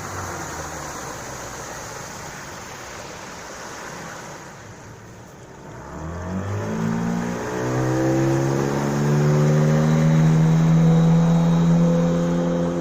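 Sea Pro 9.9 two-stroke outboard motor running, its revs dropping at the start and staying lower for a few seconds. About halfway through the throttle opens: the pitch rises and the motor runs louder and steady at higher revs.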